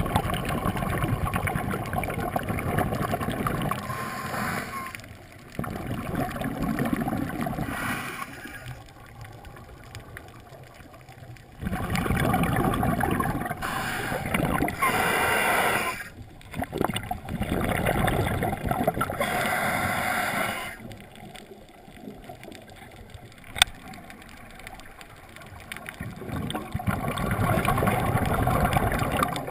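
Scuba diver breathing through a regulator, heard underwater: long bursts of rushing, gurgling exhaled bubbles lasting several seconds each, with quieter gaps for the in-breaths. There is one sharp click about two-thirds of the way through.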